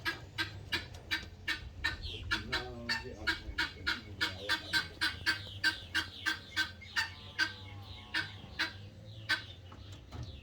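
Chickens clucking: a quick, even run of short clucks, about three or four a second, with a few longer, lower calls in between.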